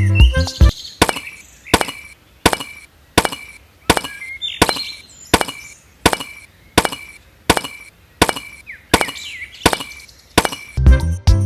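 A steady series of sharp knocks, about fourteen strokes evenly spaced a little under a second apart, each with a short ringing tail.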